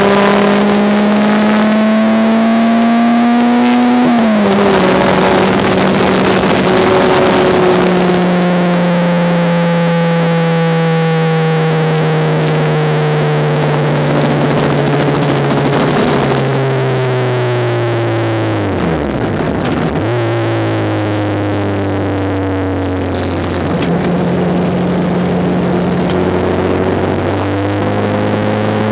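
Honda Civic race car engine heard from inside the cabin at full load. It revs up to a gear change about four seconds in, then its pitch sinks slowly. Near the twenty-second mark the revs drop steeply under braking and downshifts, then climb again through further shifts, over heavy road and wind roar.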